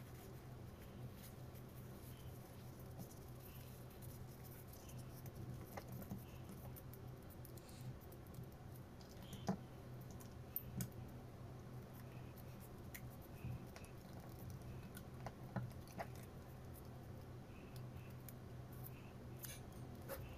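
Faint handling sounds of fingers working a paper tissue, thin wooden sticks and a rubber band on a tabletop: scattered small taps and clicks, a few sharper ones around the middle, over a steady low hum.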